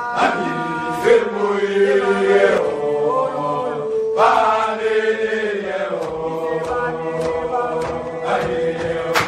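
Chanted vocal music: voices singing long, drawn-out notes, with one steady note held from about four seconds in until near the end.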